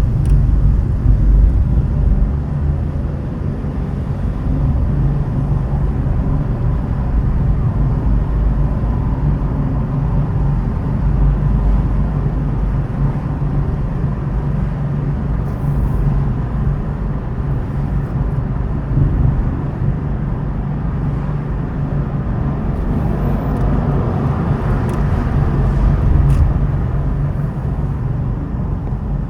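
Car driving through city traffic: a steady low rumble of engine and tyres on the road, with the road noise swelling higher for a few seconds about three-quarters of the way through.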